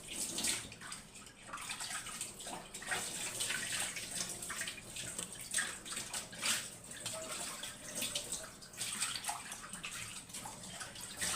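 Water boiling in a covered steamer pot, bubbling and hissing unevenly as the leaf-wrapped sweets steam.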